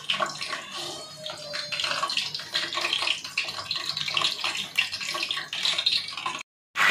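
Hot oil sizzling and crackling around a whole raw chicken being fried in an aluminium pot. The sizzle breaks off for a moment near the end and comes back louder.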